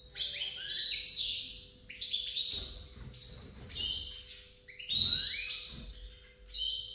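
Canaries and European goldfinches singing and chirping: quick twittering phrases of rising and falling notes, repeated several times, over a faint steady hum.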